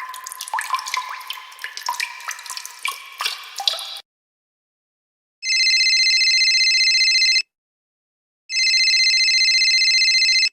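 Quick water drops plinking, about four seconds of small pitched plops. Then, after a short pause, an electronic ringing tone sounds twice, each ring about two seconds long.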